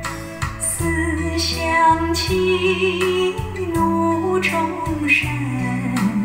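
A Chinese song played from a cassette tape over hi-fi loudspeakers: a singing voice with vibrato over sustained bass notes and instrumental accompaniment.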